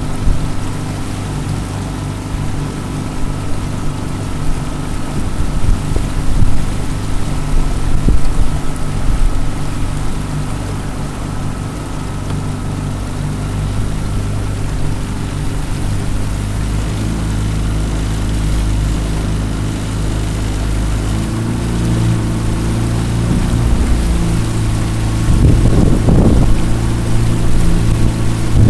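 Jon boat's outboard motor running steadily under way; its note shifts slightly about three quarters of the way through, and a short rush of noise comes near the end.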